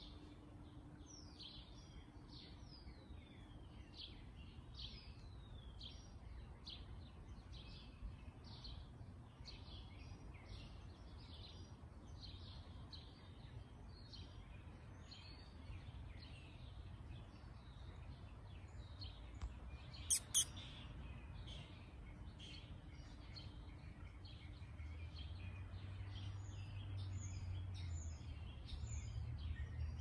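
Many small birds chirping and calling together in a dense chorus of short, quick notes, some sweeping down in pitch. About two-thirds of the way through come two sharp clicks, and a low rumble grows louder near the end.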